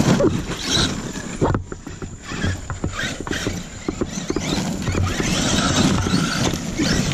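Brushless electric motors of RC monster trucks whining up and down as they accelerate over loose gravel, with the tyres crunching and flinging stones that clatter and crackle throughout.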